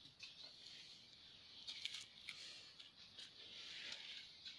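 Near silence: a faint steady outdoor background with a few soft clicks.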